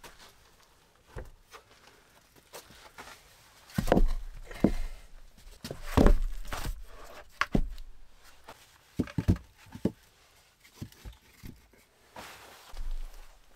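Wooden knocks and thuds as short logs are set down on a log floor and shifted into place, irregular, the loudest about 4 and 6 seconds in, with footsteps between.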